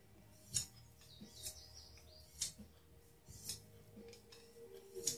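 Knife edge drawn across a small oiled flat stone in single sharpening passes, alternating sides: about five short, faint scrapes roughly a second apart.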